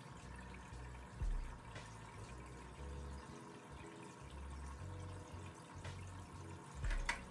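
Water trickling and pouring steadily in a home aquarium, with two soft thumps, one about a second in and one near the end.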